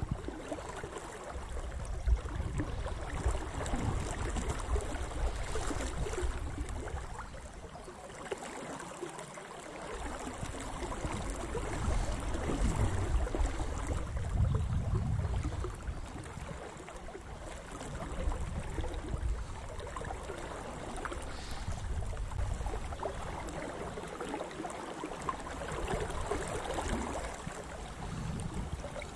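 Flooded river running fast around a wading angler, a steady wash of water with a low rumble that swells and fades every few seconds.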